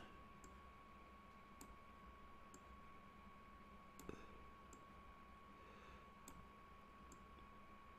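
Faint computer mouse clicks, about eight at uneven intervals, over a low steady hum in a near-silent room.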